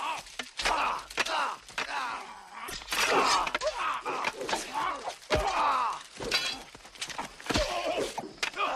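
Martial-arts film fight sound: a quick run of sharp hits, thuds and crashes, mixed with the fighters' strained shouts and groans.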